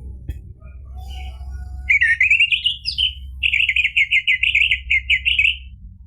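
Orange-headed thrush singing: a rising warbled phrase about two seconds in, then a fast run of repeated notes lasting about two seconds, over a low steady hum.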